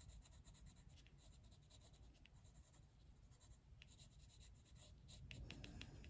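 Faint scratching of a coloured pencil on paper: short shading strokes pressed on harder to darken a drawn beard, getting a little louder near the end.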